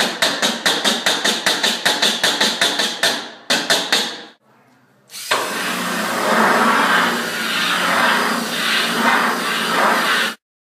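Steel chisel and pliers struck rapidly and repeatedly against a Neolith sintered-stone countertop in an impact test, about seven sharp strikes a second for some three seconds, then a few more. After a brief pause, a power drill's bit spins and grinds against the stone surface as a scratch test for about five seconds, cutting off suddenly.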